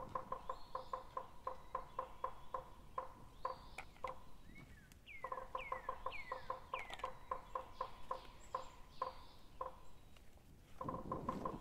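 Runs of short calls, all at the same pitch, about five or six a second, pausing briefly twice, with a few high calls falling in pitch about halfway through.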